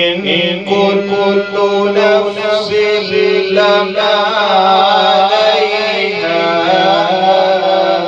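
A man chanting Quran recitation (tilawat) in the melodic tajweed style, solo and unaccompanied. The voice comes in suddenly and carries one long phrase of held, wavering notes.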